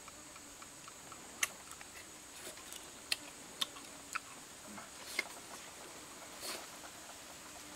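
A person eating roast chicken off a bamboo spit: a handful of sharp wet mouth clicks and smacks while chewing, about five spread through a few seconds. A steady high-pitched drone runs behind them.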